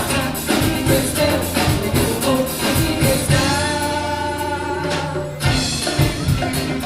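A Brazilian band playing a song with singing over drums and percussion. About halfway through, a long held note rings out over lighter percussion, then the full beat comes back.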